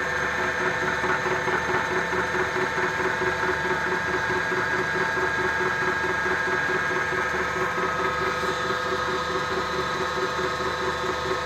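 Bridgeport milling machine running with its cutter fed into the steel stub of a clutch pedal, milling the face: a steady mechanical running sound with several held tones throughout.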